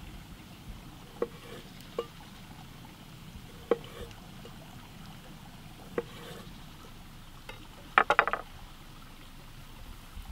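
Serbian chef's knife slicing cherry tomatoes on a wooden cutting board. Single sharp taps of the blade on the board come every second or two, then a quick run of several taps about eight seconds in, the loudest of them.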